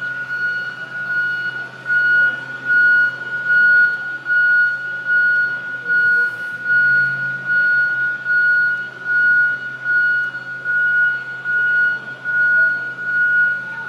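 Warning beeper of a Komatsu HD605-7 dump truck, a steady high-pitched beep repeating a little over once a second, over a low hum.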